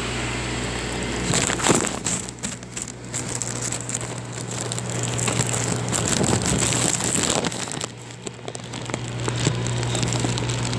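Heavy rain coming down hard in gusting wind, with dense crackling of drops hitting nearby surfaces and the level surging and easing with the gusts. A steady low hum runs underneath.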